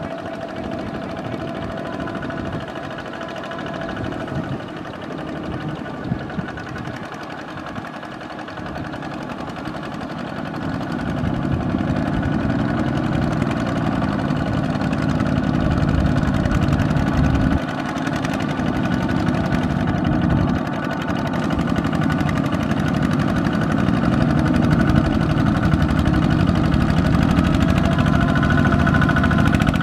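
Single-cylinder diesel engines of two-wheel walking tractors running under load as they pull loaded trailers through deep paddy mud, getting louder as they come closer.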